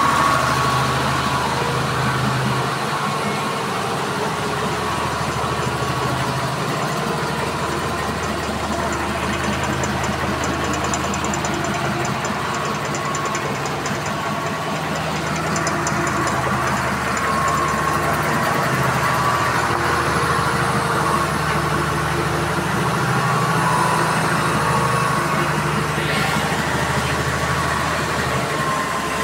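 A 150 kW biogas generator's engine running steadily under a load of about 65–70 kVA, a low, even engine note that does not change.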